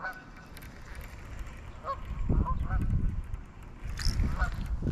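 Geese honking: several short calls, one right at the start and a cluster about two to four and a half seconds in. A low rumble comes up about two seconds in.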